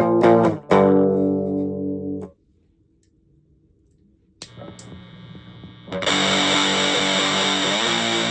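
Electric guitar through an Orange Crush 35RT amplifier: clean-tone chords ring and stop about two seconds in. After a pause there are a couple of clicks and a faint hum. About six seconds in, loud, heavily fuzzed guitar starts through an Electro-Harmonix Big Muff distortion pedal.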